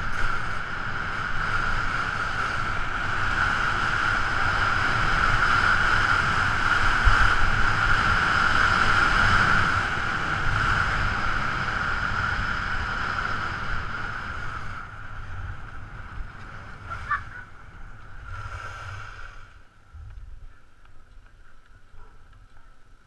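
Rushing wind over a helmet-mounted camera and telemark skis scraping over hard-packed, tracked piste snow during a fast run. The rush is loudest in the middle, then fades over the last third as the skier slows to a stop.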